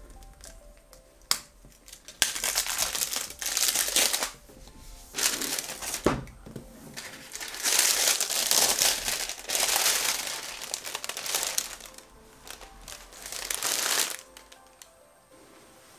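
Cellophane shrink wrap crinkling as hands pull it off a cardboard box. It comes in four bursts of a few seconds each, the longest lasting about four seconds.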